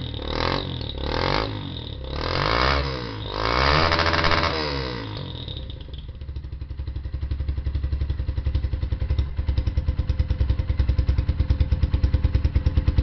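Suzuki Yes 125 motorcycle's single-cylinder four-stroke engine breathing through an aftermarket ML Competition (Roncar) exhaust, revved in several short throttle blips, then dropping to idle about five seconds in, with each firing pulse heard separately.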